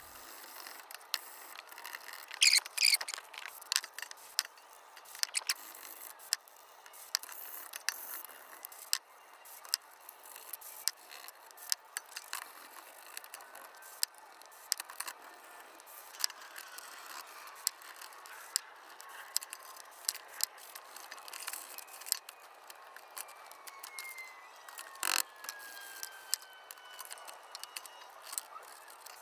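Irregular metal scraping, rattling and sharp clicks as a rusty steel lantern is scrubbed with a wire brush and steel wool to take off the rust, with a faint squeak in the second half.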